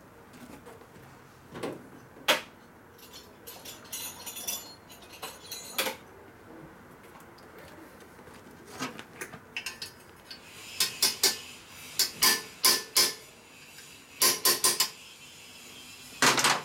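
Steel hand tools clinking and clicking against metal as a nut is worked on a stud of the motorcycle. It comes as scattered sharp clicks, one loud one about two seconds in, then quick clusters of several clicks in the second half.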